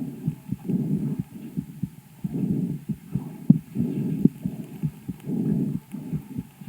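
Calf's chest sounds through a homemade stethoscope microphone on the right side: breath sounds swelling and fading about every second and a half, with many short sharp clicks between and across them. The calf's lung ultrasound showed lesions in the right lung only.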